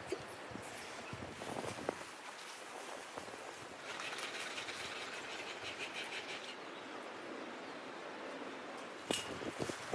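Outdoor background noise with scattered light clicks and knocks; about four seconds in, a rapid high-pitched chirping trill runs for a couple of seconds.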